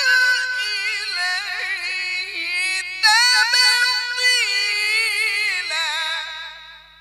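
A man reciting the Quran in a melodic, ornamented chant, each long phrase winding up and down in pitch. One phrase runs to about three seconds in; a fresh phrase begins at once and fades away near the end.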